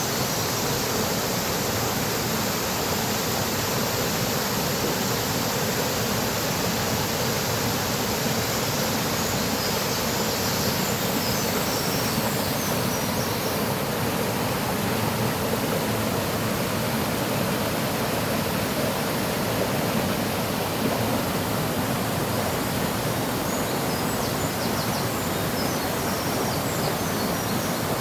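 Mountain valley stream rushing steadily over rocks, a dense even wash of water noise. Faint high bird chirps come through now and then, mostly drowned by the water.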